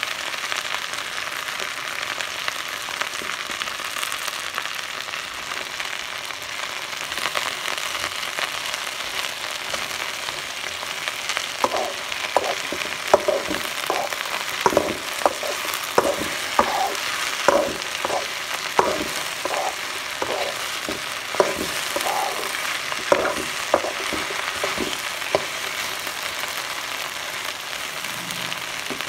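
Sliced okra sizzling with a steady hiss as it dry-fries in a metal wok. Through the middle stretch a metal spatula scrapes and knocks against the pan as it stirs, about one to two strokes a second, stopping a few seconds before the end.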